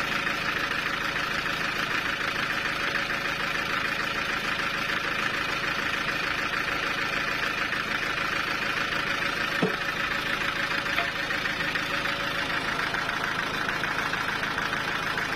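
Sawmill machinery running steadily: a constant mechanical hum with a fast, even rattle and a steady tone, and one short knock about ten seconds in.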